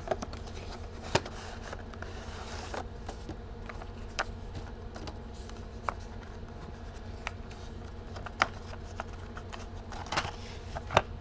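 Packaging being handled during an unboxing: paper and cardboard rustling, with a scattered handful of sharp clicks and taps, over a steady low hum.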